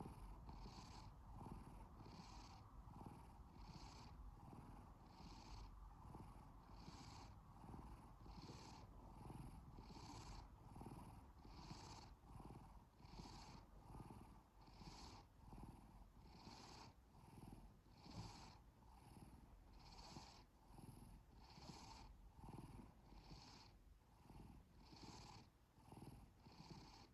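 Domestic cat purring faintly, the purr swelling and fading in an even rhythm a little faster than once a second.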